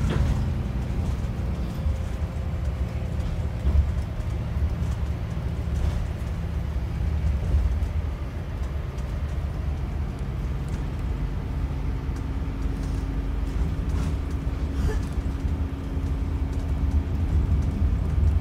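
Inside a moving single-deck bus: the low, steady rumble of its engine and road noise. A steady drone joins the rumble about halfway through.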